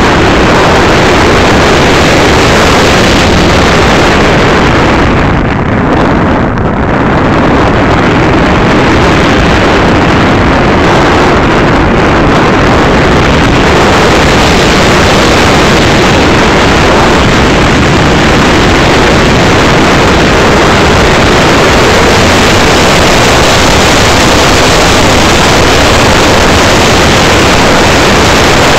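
Radio-controlled SU-25 model jet in flight, heard from a camera in its canopy: a loud, steady rush of airflow and motor noise with no distinct tone, easing briefly about six seconds in.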